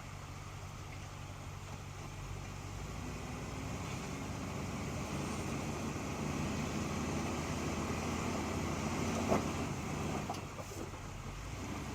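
A 1973 Chevrolet K20 pickup's engine running at low revs while crawling over loose rock, slowly getting louder. There is a single sharp knock about nine seconds in.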